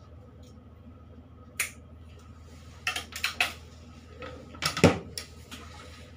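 Scattered clicks and clinks of grooming tools being handled, with a cluster about three seconds in and a louder knock a little before five seconds, over a low steady hum.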